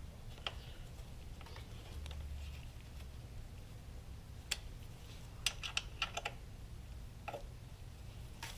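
Light clicks and taps of hand tools on motorcycle parts, likely an Allen wrench working fasteners, spread out with a quick run of clicks about five and a half seconds in, over a low steady hum.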